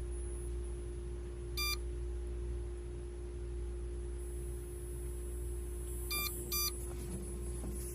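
Pure sine wave power inverter beeping three short times as it powers up: one beep, then two close together a few seconds later, over a steady electrical hum.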